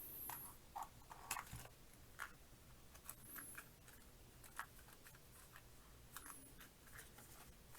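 Faint, scattered small clicks and light taps of the doorbell's mounting hardware and packaging being handled, about a dozen over several seconds with quiet between them.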